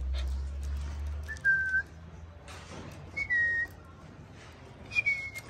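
A person whistling three short notes, each pitched a little higher than the last, with a few crunches on gravel between them.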